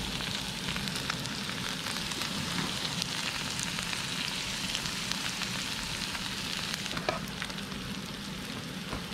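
Butter sizzling steadily as it melts on a hot griddle, pushed around with a wooden stick. Chopped garlic goes in near the end.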